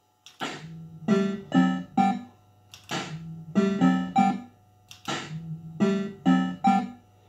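Bell Fruit Cash Explosion fruit machine playing its electronic tune as the reels spin. A short phrase of sharp notes loops about every two and a half seconds, each repeat opening with a brief noisy hit, over a steady low hum.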